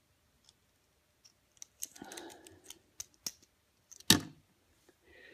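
Small clicks and taps of plastic toy-car parts being handled, with one sharp, louder click about four seconds in as a hand reaches for the car.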